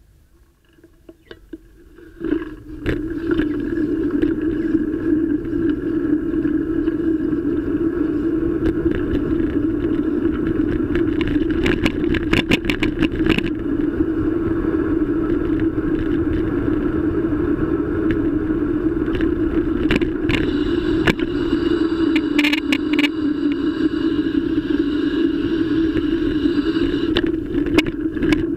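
Noise of a bicycle ride picked up by a bike-mounted camera. It starts about two seconds in as the bike sets off, then runs loud and steady: a hum over a low rumble, with a few short runs of rattling clicks.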